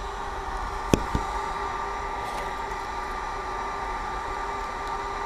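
Steady fan-like whir with a faint steady hum in it, and two sharp clicks close together about a second in.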